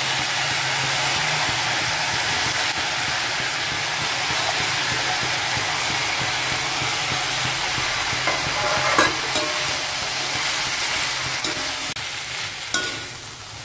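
Freshly added drumstick leaves sizzling as they fry in hot oil with onions, stirred with a slotted steel ladle that scrapes the pan now and then. The sizzle is steady and eases off near the end as the leaves wilt.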